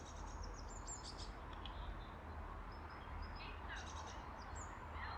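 Tits calling in short, high, rapid chirps and twitters near the start and again about four seconds in, over a steady low background rumble.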